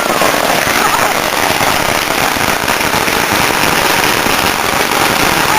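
Firecrackers going off in a dense, unbroken run of rapid small pops, loud and steady throughout.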